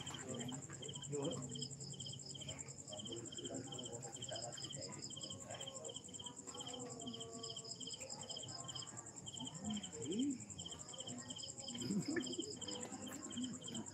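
Crickets chirping in a steady rhythm, about two chirps a second, over a continuous high-pitched insect trill.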